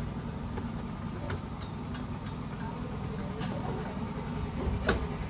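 Miniature railway train on 7¼-inch gauge track: a steady low rumble of the locomotive and its wheels, with a few sharp clicks, the loudest near the end.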